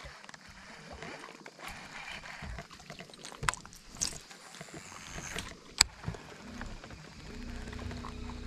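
A few sharp clicks from handling a baitcasting rod and reel. About seven seconds in, a steady low electric hum starts, the boat's bow-mounted trolling motor.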